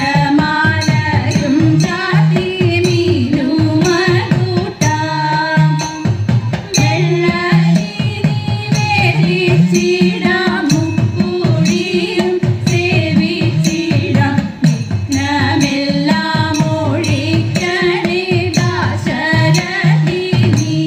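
Thiruvathirakali dance song: Malayalam singing in a Carnatic style over a steady percussion beat.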